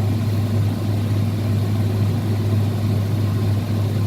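Steady low mechanical hum of running kitchen machinery, unchanging throughout, with its strongest tone near 100 Hz.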